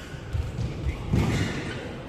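Dull thumps of players' feet on a badminton court floor, several in quick succession and loudest a little past the middle, over a murmur of voices in the hall.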